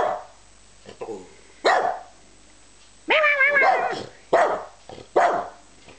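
Australian Terrier 'singing': short, sharp barks, with one longer wavering howl about three seconds in, then two more barks.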